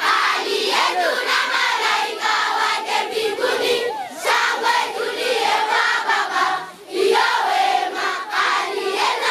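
A large crowd of schoolchildren shouting and cheering together, many voices overlapping, dropping briefly about seven seconds in.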